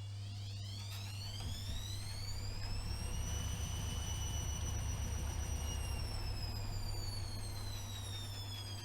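AEG ÖKO-Lavamat 76730 washing machine's drum motor whining as the drum speeds up: the whine rises in pitch for about three seconds, holds, then falls again as the drum slows, over a steady low hum and a rumble that grows while the drum is at speed.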